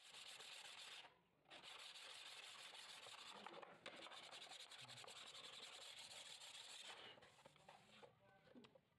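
Sandpaper being rubbed quickly back and forth over a rusty steel plane sole plate, scouring the rust off the metal. The rubbing pauses briefly about a second in and dies away about seven seconds in.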